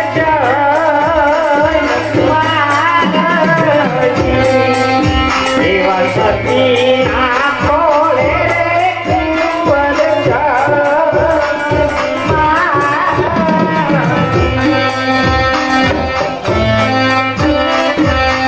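Devotional folk song: a singer's ornamented, wavering melody through a microphone and PA, over a steady tabla-style hand-drum rhythm and sustained melodic accompaniment.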